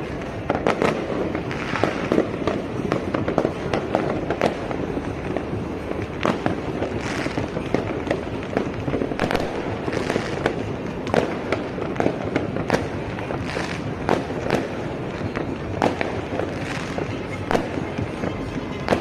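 New Year's Eve fireworks and firecrackers going off all around: many sharp bangs at irregular intervals, several a second at times, over a continuous background of distant bangs and crackle.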